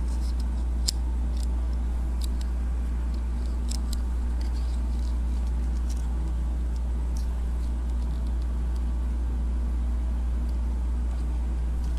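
Scattered faint clicks and taps of plastic parts on a cassette-shaped Transformers toy being handled, over a steady low hum.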